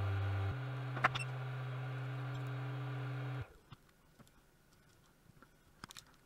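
Steady hum of a small electric fan motor, which steps up in pitch about half a second in and cuts off abruptly after about three and a half seconds. Faint small clicks and scrapes follow.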